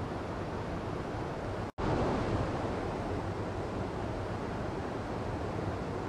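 Steady rushing of a small mountain stream cascading over boulders, with a momentary dropout to silence a little under two seconds in, after which it comes back slightly louder.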